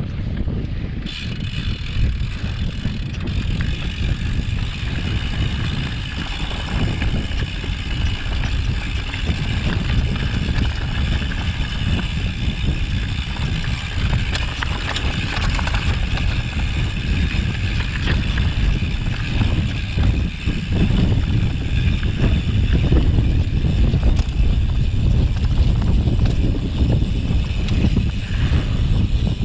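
Mountain bike descending a rough mountain trail: tyres rolling and the bike rattling over stones, with wind rumbling on the microphone. A steady high buzz sets in about a second in and carries on.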